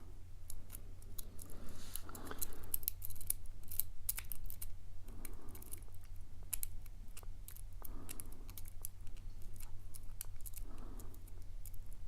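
Lock pick and tension wrench clicking and scraping on the pin stack inside a steel padlock's keyway during single-pin picking: many small irregular ticks. The lock is not giving; a stubborn number 1 pin will not set.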